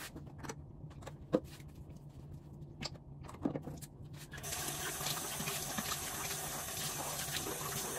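Bathroom sink tap running steadily, switched on about halfway through, after a few small clicks and knocks.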